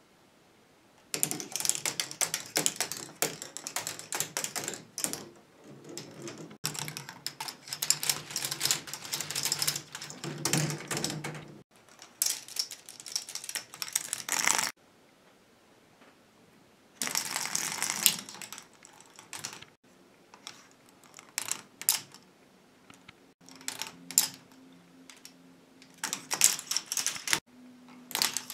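Plastic balls rolling and clattering through a K'nex ball machine's plastic tracks and rod framework: dense runs of rapid clicks and rattles, stopping and starting several times with short quiet gaps.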